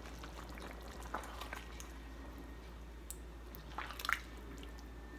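Thin bottle gourd and fish curry simmering in a wok with a steady patter of small bubbles popping. A wooden spatula stirs through it, with the loudest clicks and knocks against the pan near four seconds in.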